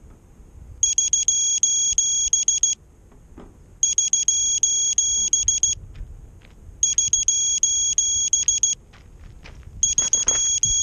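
Racing quadcopter's lost-model buzzer beeping while the quad sits on the ground: bursts of rapid high beeps, each burst about two seconds long, repeating every three seconds.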